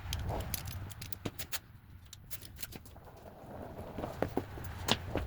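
Irregular light clicks and knocks of tools and metal engine parts being handled, a few sharper ones near the end, over a low steady hum.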